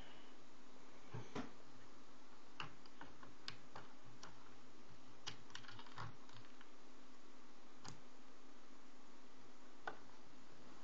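Faint, irregular light clicks and taps of a plastic Lego model being handled, about a dozen spread over steady background hiss.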